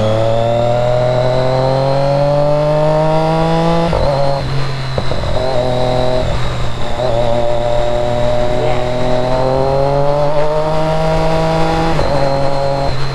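Triumph Daytona 675R's 675 cc inline-three engine through an Arrow exhaust, pulling hard under acceleration, its note rising through the revs. The pitch drops sharply at an upshift about four seconds in, then climbs again to another upshift near the end.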